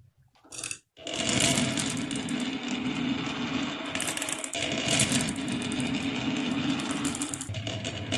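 Many marbles rolling and clattering down a wooden marble run, a dense continuous rattle of small clicks that starts about a second in.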